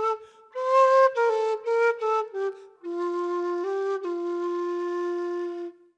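Ash-wood quena in F played solo, improvising: a quick run of short notes, then after a brief breath a long low held note with a short step up partway through, dying away near the end.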